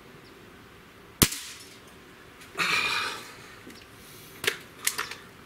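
Feinwerkbau Sport .177 spring-piston breakbarrel air rifle firing one shot, a single sharp crack about a second in. It is followed by a longer burst of noise and then a few light clicks as the rifle is lifted off the rest.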